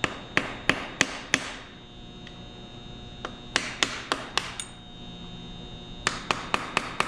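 Hammer tapping a screwdriver set against a stuck valve guide in a Ford Model A four-cylinder flathead engine block: three bursts of about four sharp metallic taps each. The guide does not budge.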